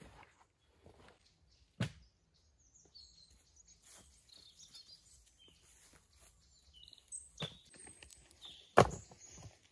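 Small birds chirping and twittering in woodland, over faint rustling in dry leaf litter. A sharp knock sounds about two seconds in, and a louder sharp knock comes near the end.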